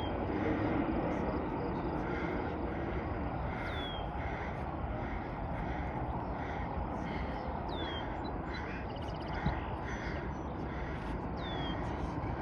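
Roller coaster chain lift hill running: a steady rumble with a faint rhythmic clicking about twice a second. A bird gives a short falling whistle about every four seconds.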